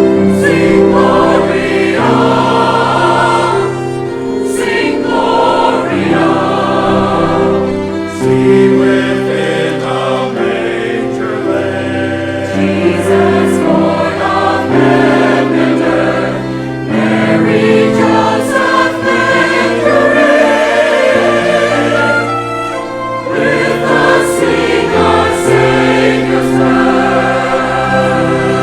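Church choir singing with orchestral accompaniment: sustained sung chords over steady bass notes.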